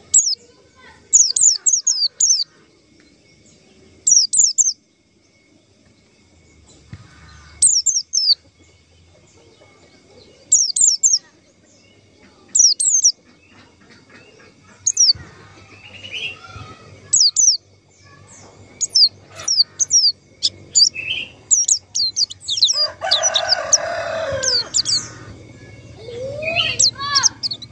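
White-eye (pleci) calls: clusters of short, high, downward-slurred chirps repeated every second or two. A louder, lower, rougher sound comes about three quarters of the way in.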